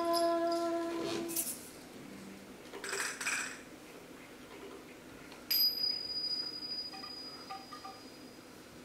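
A voice holds a sung note that stops about a second and a half in. A short rustle follows, then a single high metallic ring sounds about five and a half seconds in and rings out for a second or more.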